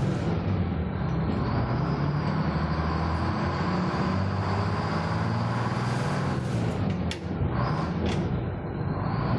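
Old tram running: a steady low motor hum with running rumble. Two short sharp noises stand out about seven and eight seconds in.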